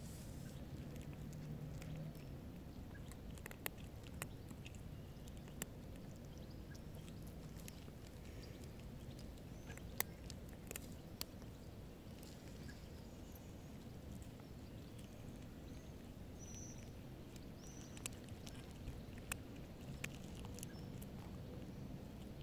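A cat crunching dry kibble: scattered sharp crunches over steady low background noise, with a pause in the middle.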